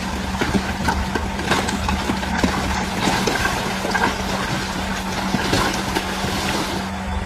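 DH17C3 bulldozer's diesel engine running with a steady low hum, with scattered short clicks and knocks over it.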